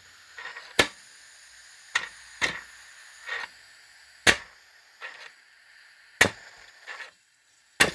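3D-printed compressed-air piston engine with no flywheel, its crank flicked by hand: about six irregular sharp plastic clicks with short puffs of air between them. It will not keep running, because without a flywheel there is not enough energy on the upstroke to open the air inlet valve.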